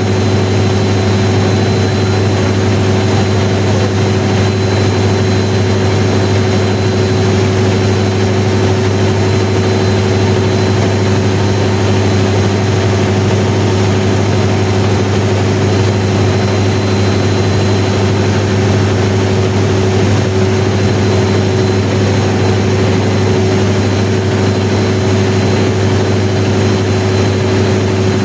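1000 kW diesel generator set running at a steady speed: a loud, unchanging engine drone with a strong low hum.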